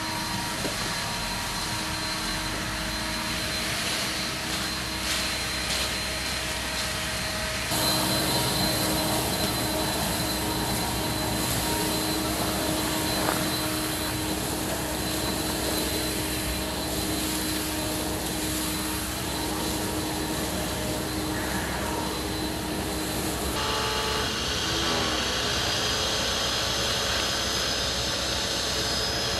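Small gasoline engine of a handheld leaf blower running steadily at speed, with a high whine over the rushing air. The sound shifts abruptly about eight seconds in and again about 24 seconds in.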